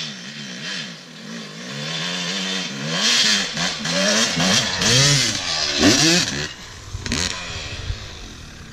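Yamaha YZ250 two-stroke dirt bike engine revving hard on the run-up to a jump, its pitch rising and falling with each blip of the throttle. It grows louder over the first few seconds, peaks about six seconds in, then falls away.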